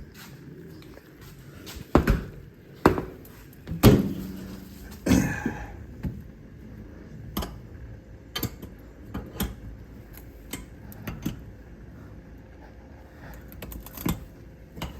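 Irregular knocks and clunks of a side-by-side's seat pad being fitted back on, with lighter clicks and rattles in between; the heaviest thuds come about two to four seconds in.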